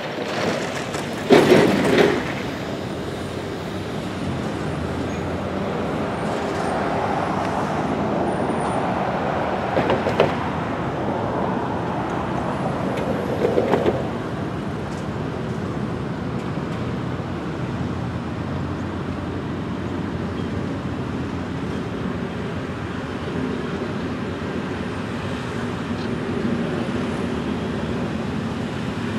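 Road traffic passing close by: cars and a pickup truck going by one after another over a steady rumble. There is a brief loud noise about a second and a half in.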